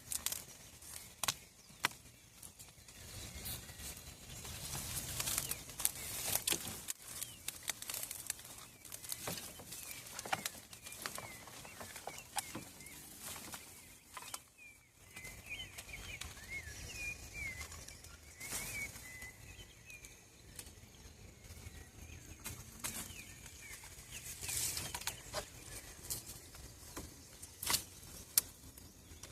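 Scattered rustling and sharp clicks close to the microphone, with a small bird chirping for a few seconds about halfway through.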